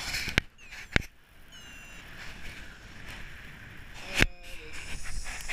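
Wind rushing over the microphone of a camera carried by a paraglider pilot in flight, with three sharp knocks: about half a second in, at one second, and a louder one just after four seconds. A few faint short tones come in briefly about a second and a half in.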